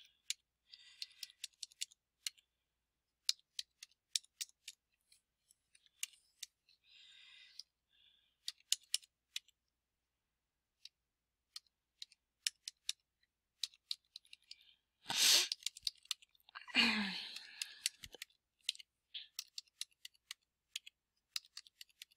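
Computer keyboard keys clicking in quick irregular runs as numbers are typed on the numeric keypad. About two-thirds of the way through there is a loud short burst of noise, then a brief vocal sound from the typist that falls in pitch.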